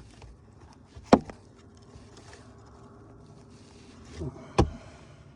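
Two sharp knocks of metal tools and parts being handled while wiring terminals are fitted, about three and a half seconds apart, the second just after a short scrape.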